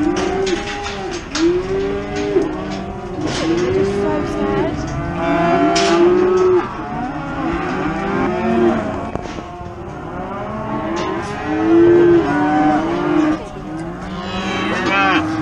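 Many cattle mooing, their calls overlapping one after another without pause, with a few sharp knocks between them.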